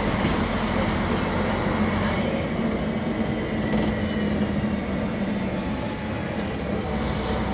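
Mercedes-Benz OM-457 LA six-cylinder diesel of an articulated city bus running steadily under way, a low engine drone with road noise. A few light rattling clicks come from the body, about four seconds in and near the end.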